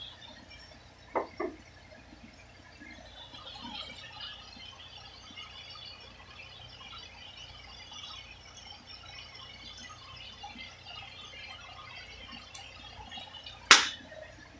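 Black pepper being ground by hand over a saucepan of sliced onions, a faint crackly grinding hiss, with two light knocks about a second in and a sharp knock near the end.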